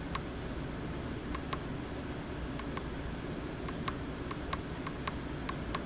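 Small push buttons on a frequency counter module clicking as they are pressed repeatedly to step through the digits of the IF offset setting. The clicks are sharp and short, often in pairs of press and release, about a dozen in all, over a low steady hum.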